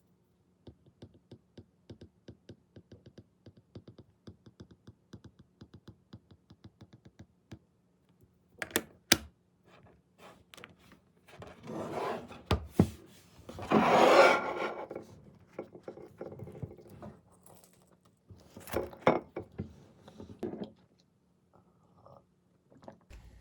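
A run of quick, evenly spaced light taps, about four or five a second, for several seconds. Then louder scraping and rustling handling noises with a few sharp knocks, the loudest about midway.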